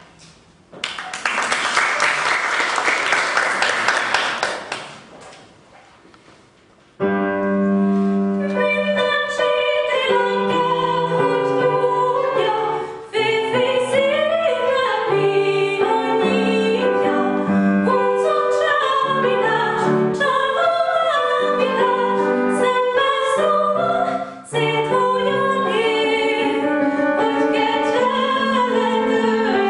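Applause for a few seconds that dies away, then a classical female voice singing an operatic piece with piano accompaniment, starting about seven seconds in.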